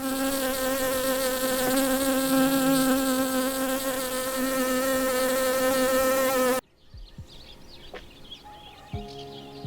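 Honey bee buzzing, a steady, loud drone that cuts off suddenly about six and a half seconds in; fainter background sounds follow.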